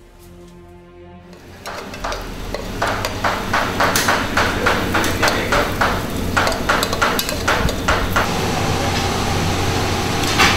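Kitchen cooking noise: a run of quick knocks and clatters of utensils against pots, over a steady hum.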